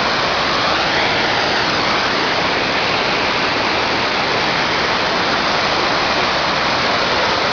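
Floodwater of the swollen Big Thompson River rushing, a loud, steady, even noise of fast-moving water.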